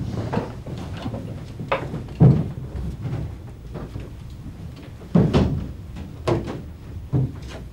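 People moving about a room with a parquet floor: shuffling footsteps and scattered knocks, with two louder thumps about two and five seconds in.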